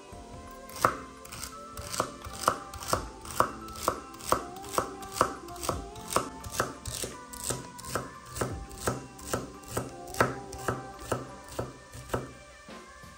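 A knife chopping vegetables on a cutting board in steady, even strokes, about two a second, starting about a second in and stopping shortly before the end.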